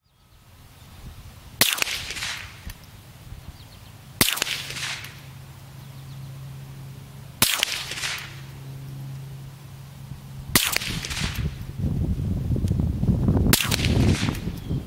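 Henry .22 rimfire lever-action rifle firing five shots, about three seconds apart, each a sharp crack with a short ringing tail.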